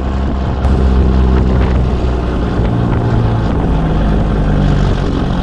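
Caterpillar 3406B inline-six diesel of a 1984 Peterbilt 362 cabover running under way, a steady low drone whose pitch shifts a few times.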